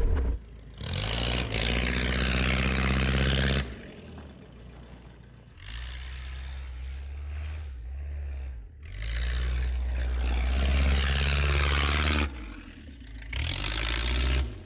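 Diesel van engine running on Dexron automatic transmission fluid instead of diesel fuel as the van drives through snow, its low engine note joined in stretches by a loud hiss of tyres pushing through snow. The sound changes abruptly several times.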